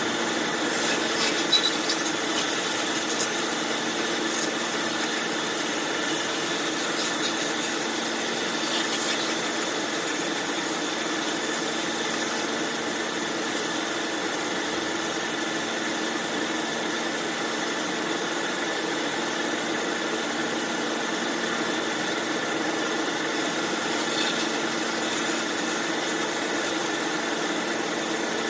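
Bandsaw machine running steadily: a constant mechanical drone with several held tones, with a few brief sharp ticks about a second or two in and again near the end.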